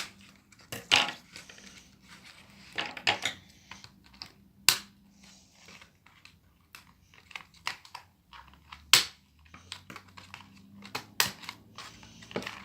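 Scissors snipping through the rubber bands that hold a Barbie doll to its packaging insert: a series of sharp, separate snips and clicks a second or more apart, with plastic and cardboard rustling as the doll is handled.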